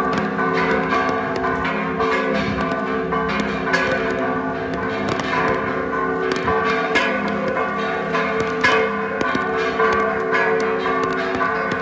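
Church bells of the parish of San Bernardino Tlaxcalancingo ringing a festive repique announcing the patronal feast. Several bells are struck rapidly and continuously, their tones overlapping in a dense, steady peal.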